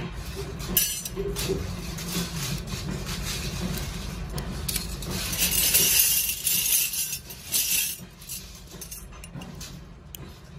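Stamped sheet-metal battery alligator clip parts clinking and clicking as they are handled and fitted together by hand, over a low steady hum. A louder rustling rush comes for a couple of seconds about midway.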